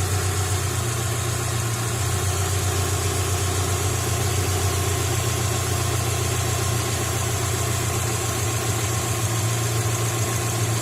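Subaru Outback engine idling steadily at an even pitch.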